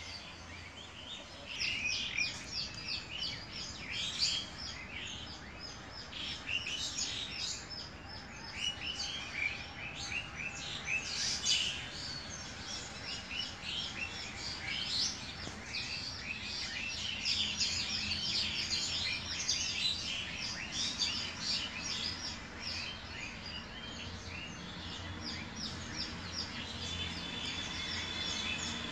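Many birds chirping, short high calls overlapping one another in a busy chorus.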